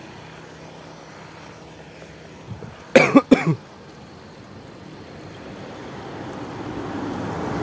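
A person coughs three times in quick succession about three seconds in. After that, a road vehicle approaches and grows steadily louder toward the end.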